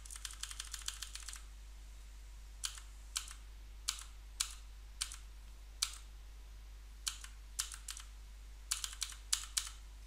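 Computer keyboard keystrokes: a quick run of key clicks at first, then single keypresses every half second or so, and another quick run near the end.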